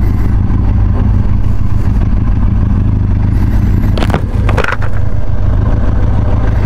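Benelli TRK 502X motorcycle's parallel-twin engine running steadily at low speed. A few sharp clatters come about four seconds in.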